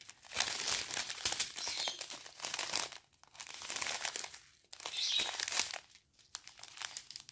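Clear plastic sachets of diamond-painting drills crinkling as they are handled, in several runs of crackling with short pauses between.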